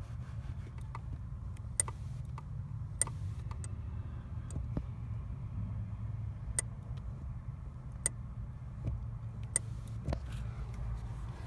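2015 Subaru WRX STI idling steadily while its clutch pedal is worked. There are about five sharp clicks, irregularly spaced a second or more apart, with fainter ticks between: the weird clutch-pedal clicking that comes without any grinding or trouble getting into gear.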